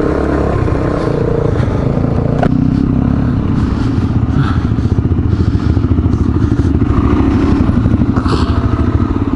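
Dual-sport motorcycle engine running under load as the bike climbs a rough dirt trail, with a few short knocks from the bike going over rocks.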